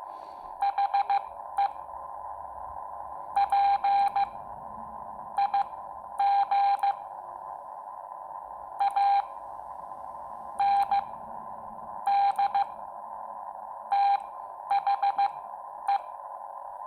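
Morse code sidetone from a Xiegu X6100 transceiver in CW training mode, keyed by hand on a Bencher BY-1 paddle: one steady beep tone in short dits and longer dahs, grouped into letters and words with gaps between, spelling out "the pig and the cow". A steady hiss runs underneath.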